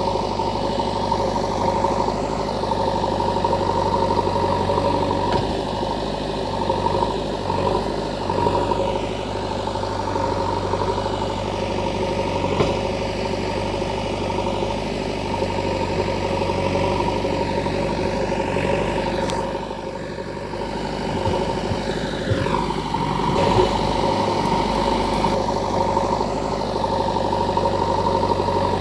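Engine running steadily with an even hum, dipping briefly about twenty seconds in.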